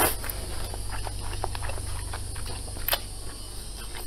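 A person slurping up a mouthful of noodles at the start, then chewing with many small wet mouth clicks.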